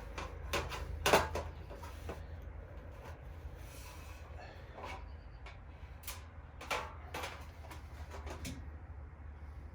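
Scattered clicks and knocks of small hardware (washers, nuts and bolts) being handled during assembly, with a louder knock about a second in and another cluster of clicks near the end, over a steady low hum.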